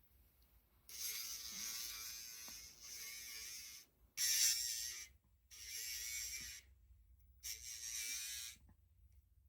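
Battery-powered electric dog nail grinder grinding a small dog's nails in four short bursts, a high whine with a gritty grinding hiss; the second burst is the loudest.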